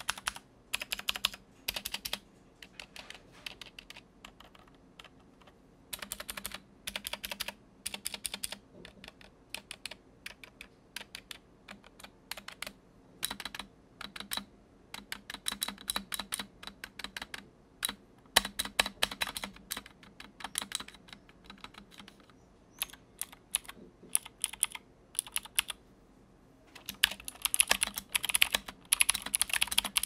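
Typing on a Kemove SnowFox 61 60% mechanical keyboard with clicky Gateron Blue switches: quick runs of sharp, high-pitched clicky keystrokes broken by short pauses, growing faster and denser near the end.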